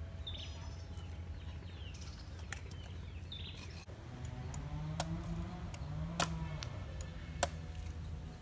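A large knife chopping into the husk of a green coconut: three sharp strikes about a second apart in the second half. Birds chirp earlier on.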